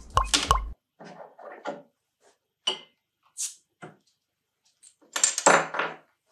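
Background music ends in the first second. After it, a glass beer bottle and a drinking glass are handled on a wooden table, giving a few light knocks and clicks, a short hiss about three and a half seconds in, and a louder clatter near the end.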